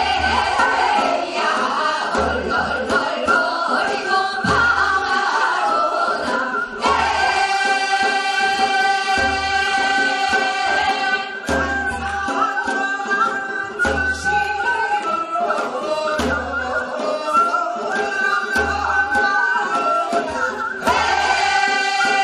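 A women's chorus singing a Korean folk song (minyo) in unison, with long held, wavering notes, over a drum struck on a slow beat about every two and a half seconds.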